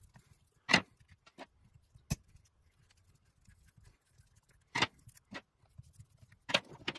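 A screwdriver backing out the screws that hold the throttle position sensor on a Chevy TBI throttle body, making scattered sharp clicks and light metal taps. There are about seven of them, and the loudest comes about a second in.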